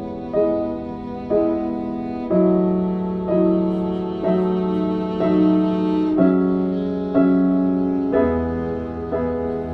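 Slow instrumental background music: a new note or chord about once a second over sustained tones, with a deep bass note coming in near the end.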